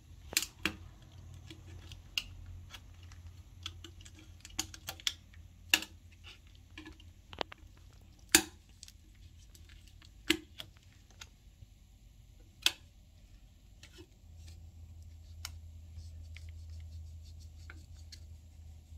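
Irregular small clicks and taps from handling a TV panel's ribbon cables and their connectors while they are cleaned with an alcohol swab, with a faint low hum underneath that grows louder about three-quarters of the way through.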